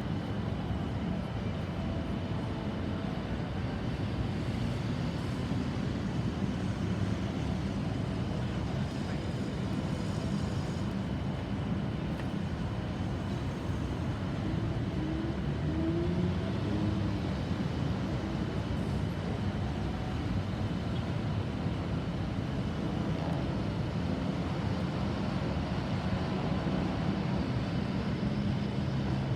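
Steady low rumble of road traffic: vehicle engines and tyres running on, with a faint steady high tone above it.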